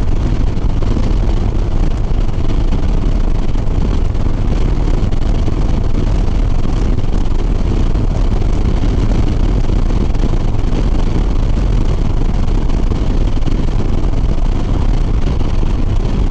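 Harley-Davidson Sport Glide's V-twin running steadily at highway speed, under heavy wind rush on the rider's microphone.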